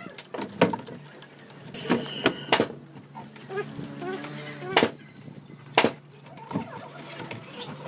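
Metal hand tools and a scooter brake lever being handled: about half a dozen sharp clinks and knocks, spaced unevenly, over a faint steady hum.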